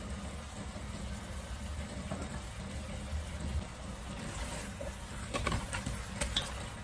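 Braised chicken and chestnuts simmering in dark sauce in a stainless steel pot, over a low steady hum. About four and a half seconds in, a spatula starts stirring the pieces, with a few sharp clicks and scrapes against the pot.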